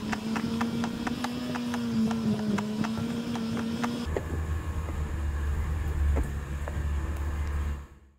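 2021 Ford Bronco's engine running at a steady pitch while its tyres crawl over loose rock, with frequent sharp clicks and crunches. About four seconds in, the engine note fades under a low rumble, and the sound fades out near the end.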